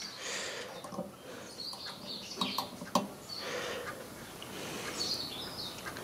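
A few small clicks and rustling of hands working push-on connectors and wires on a microwave magnetron's filament terminals, with birds chirping faintly in the background.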